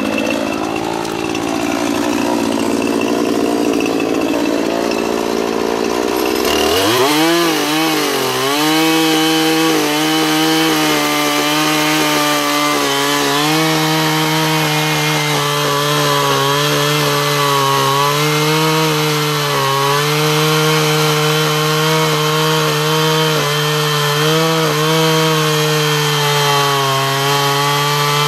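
Gas chainsaw running unevenly at low speed, then opened up about six seconds in to a high, steady full-throttle whine with small dips in pitch as it cuts through dead mesquite wood.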